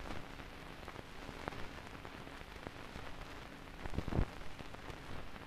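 Steady crackling hiss of an old-film effect, dotted with scattered pops and clicks, with a cluster of louder pops about four seconds in.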